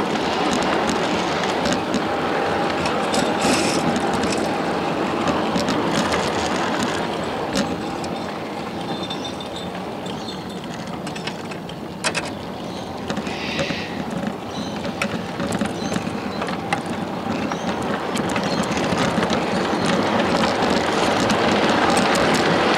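A ridable miniature steam railway train running on its track: a steady rumble of steel wheels on rail, with sharp clicks as the wheels pass over rail joints, one louder click about halfway through. The running gets louder near the end.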